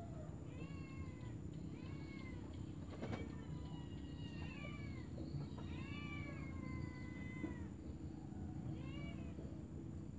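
An animal calling over and over: a dozen or so short meow-like cries that rise and fall in pitch, one of them longer about six seconds in, over a low steady hum.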